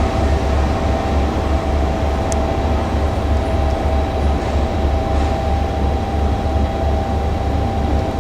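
Two-car KiHa 40-series diesel railcar train running, a steady low rumble with a steady whine above it.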